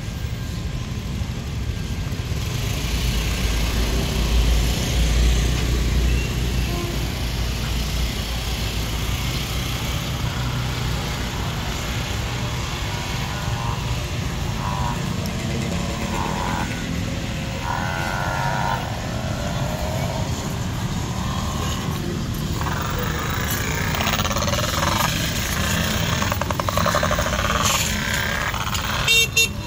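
Town street ambience: motor traffic, including motorcycles, running along the road, with a louder low rumble a few seconds in. Voices of people in the park come through in the second half.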